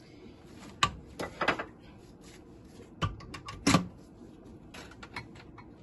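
Kitchen utensils clinking and knocking as a spoon and dishes are handled while sugar and salt go into yogurt. There are a few sharp knocks about a second in and the loudest just under four seconds in, with lighter ticks between.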